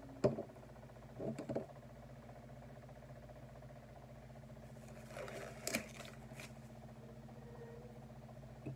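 Light plastic clicks and taps from handling a glitter shaker bottle and a small plastic cup, with a brief rustle and click about five seconds in, over a steady low hum.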